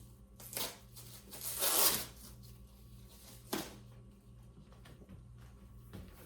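Handling of a leather handbag: a short rub just after the start, a longer rustle about a second and a half in, and a brief sharp sound at about three and a half seconds.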